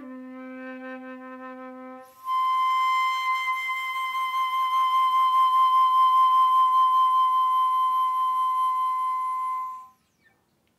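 Solo concert flute playing a soft note in its low register, then leaping to a loud high note held for about eight seconds with vibrato. The note stops about ten seconds in: the piece's final held note.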